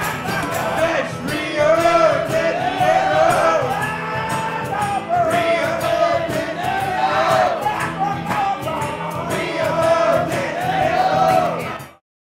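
Live band performance: a man singing into a microphone over guitar accompaniment, the same melodic phrase coming round every second or two. The music cuts off abruptly near the end.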